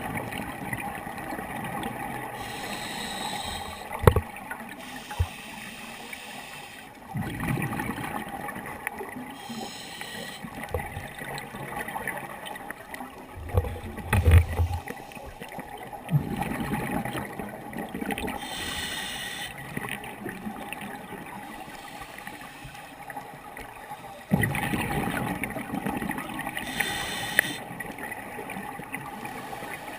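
Scuba diver breathing through a regulator underwater: a short inhalation hiss about every eight seconds, each followed by a longer burst of exhaled bubbles. A few sharp clicks and knocks sound in between.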